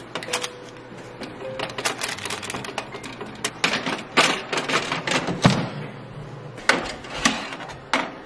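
Granola being stirred and turned on a baking tray with a spatula: irregular clattering and scraping strokes as the oat clusters and nuts rattle against the tray.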